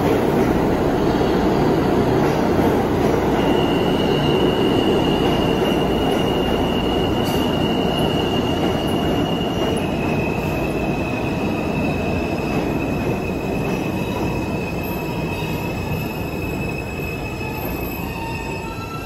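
New York City Subway F train pulling into a station and slowing to a stop: a steady rumble of wheels on rail that slowly fades. A high, steady squeal joins about three seconds in and drops slightly in pitch about halfway through.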